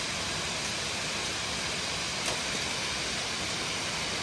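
Steady rushing of a waterfall, with one small click about two seconds in.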